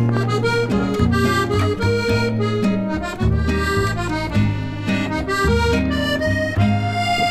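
Background instrumental music: a bright accordion-like melody over a steady bass line.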